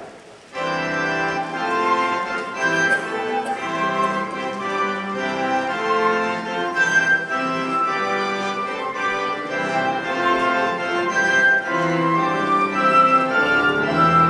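An organ begins playing about half a second in, with held chords and moving notes: the voluntary after the dismissal at the end of the service.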